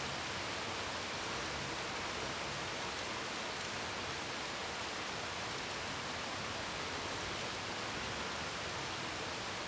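Steady rainfall: an even, unbroken hiss of rain with no distinct drops or other events standing out.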